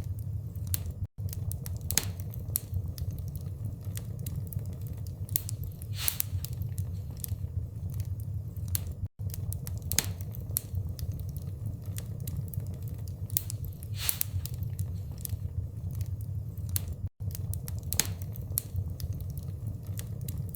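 Wood fire crackling in a fireplace: irregular sharp pops and snaps from burning logs over a steady low rumble of flame. The sound cuts out for an instant three times, about eight seconds apart.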